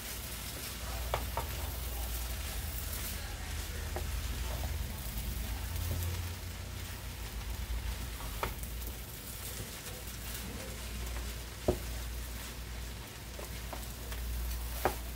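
Fried rice with peas and carrots frying in a metal pan while a wooden spoon stirs it, with scattered knocks of the spoon against the pan, the loudest about three-quarters of the way through.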